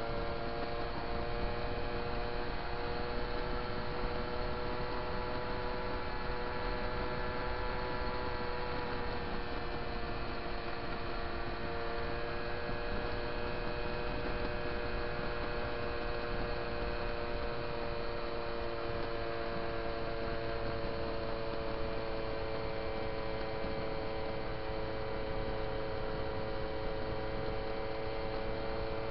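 Small moped engine running steadily at cruising speed, a continuous drone whose pitch drifts slightly up and down with road speed, over steady wind and road noise.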